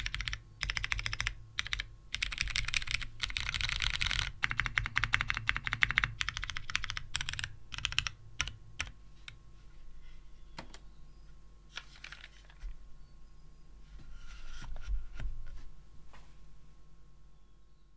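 Typing on an NRD Oku custom mechanical keyboard with lubed retooled Cherry MX Brown tactile switches on a polycarbonate plate, with DCS keycaps: fast, dense runs of keystrokes for the first eight seconds or so, then slower, scattered single key presses with a couple of short flurries.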